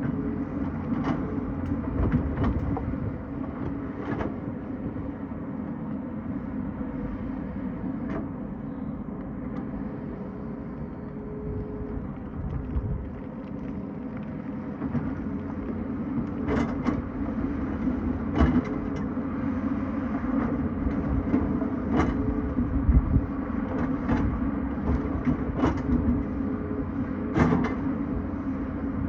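Tata Hitachi excavator's diesel engine running steadily under working load, with a held hum over the low rumble. Sharp knocks and clanks come at irregular intervals, more often in the second half.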